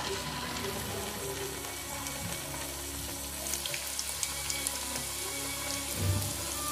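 Samosas deep-frying in hot oil at low-to-medium heat: a steady sizzle with light crackling, growing louder about three and a half seconds in as more samosas go into the pan.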